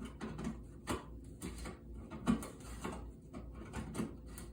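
Plastic smoke detector being twisted onto its mounting bracket: a run of irregular clicks and scrapes, with one louder knock a little past halfway.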